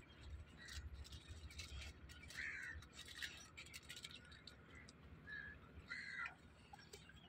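Faint crows cawing, a few short calls spread through, over scattered light clicks and a low rumble.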